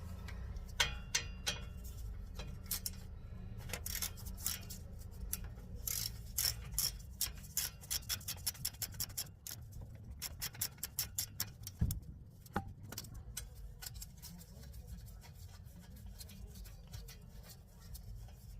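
Ratchet with a 10 mm socket clicking in quick runs as it undoes a bolt, with one heavier knock about twelve seconds in.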